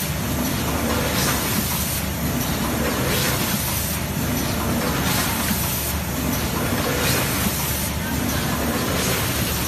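Rotary pouch-filling packing machine running steadily, a continuous mechanical clatter and hum with short hisses recurring every second or two as the carousel indexes.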